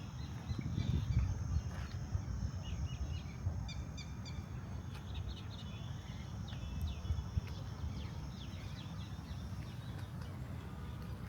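Birds chirping in many short calls over a constant low rumble, with a steady high-pitched whine that stops about nine seconds in.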